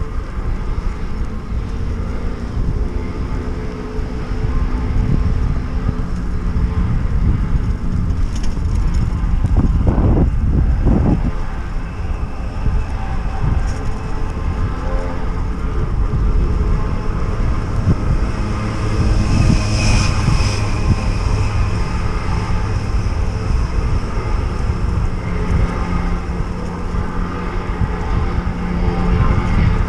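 Street noise heard from a moving bicycle: a steady low rumble of city traffic and wind on the microphone, with a brief higher hiss about twenty seconds in.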